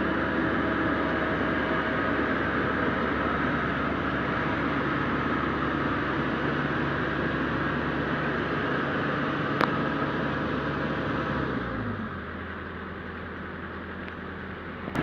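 Yanmar YH850 combine harvester's diesel engine running steadily, then slowing to a lower, quieter note about twelve seconds in. A single sharp click comes a couple of seconds before the change.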